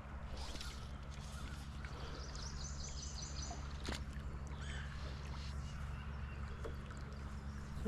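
A bird calls briefly about three seconds in, a quick run of high notes, over a steady low outdoor rumble, with a few scattered clicks.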